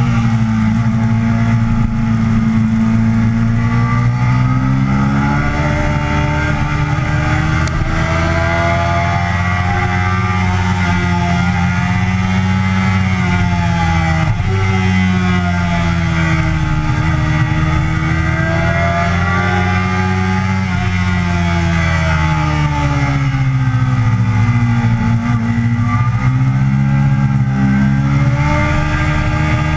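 Yamaha sport bike's engine at track speed, heard from the bike's own mount with wind rush, its note repeatedly climbing under acceleration and dropping through shifts and braking into corners.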